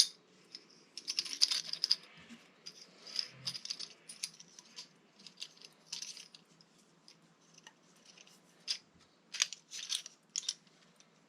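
Small metal engine parts clinking and rattling as they are handled, an irregular run of short, sharp clicks and jingles.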